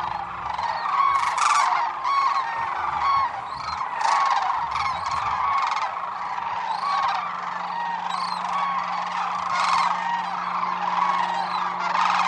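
A large flock of sandhill cranes calling, many birds at once, so their calls overlap into a dense, continuous chorus as they fly off.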